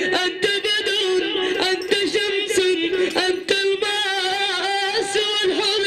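A male voice singing a drawn-out, ornamented melody of Islamic praise song (madih), with sharp percussive strikes scattered through it.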